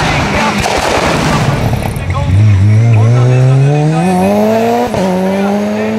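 Hillclimb race car passing close at speed, then its engine rising steadily in pitch as it accelerates away, with a sudden drop at an upshift about five seconds in.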